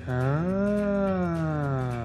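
A man's long drawn-out Turkish interjection "haaa", the sound of suddenly understanding something ("oh, I get it now"). One long held vowel, its pitch rising and then sinking back.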